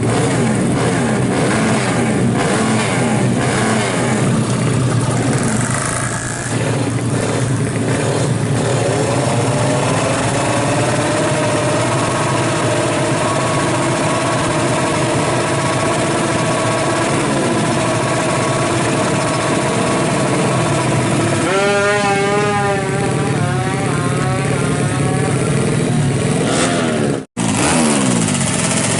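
Honda Astrea drag bike engine revving through a rusted exhaust, its pitch rising and falling over and over; late on the revs waver rapidly in quick throttle blips. The sound cuts out for an instant near the end.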